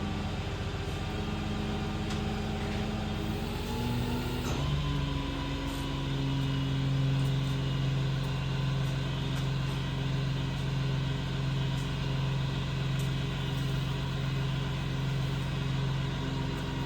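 Engine running steadily, speeding up about four and a half seconds in and then holding that higher, even speed.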